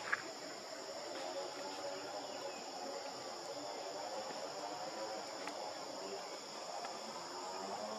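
Steady, high-pitched chorus of insects such as crickets or cicadas, with one short, sharp chirp right at the start.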